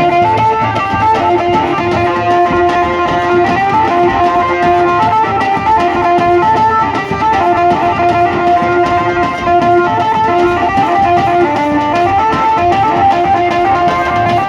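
Adivasi wedding band (band baja) music: a melody of held and repeated notes played over a steady drum beat.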